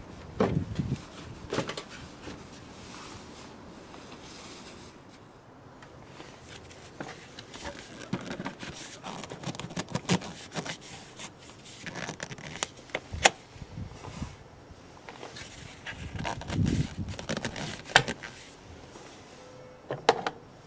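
Plastic air filter housing and rubber intake hose being handled and pushed into place: irregular scrapes and knocks, with a few sharp clicks and dull thumps.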